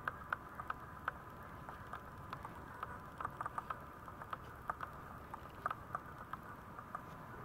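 Irregular light clicks and taps of a two-week-old Maltese puppy's claws and paws on a vinyl floor as it crawls, coming in small clusters a few per second.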